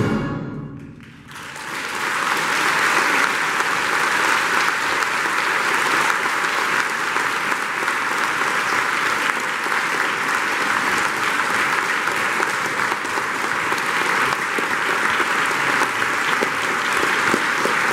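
The wind band's last chord rings away in the hall during the first second, then the audience breaks into steady, sustained applause.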